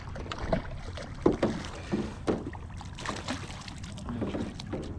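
Irregular knocks and rustles of handling aboard a small fishing boat, over a steady low rumble.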